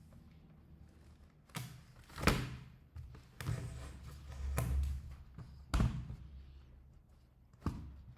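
Plastic pry tool levering at a laptop's plastic back panel: about six sharp clicks and knocks at uneven intervals, the loudest about two seconds in, as the tight panel resists coming free.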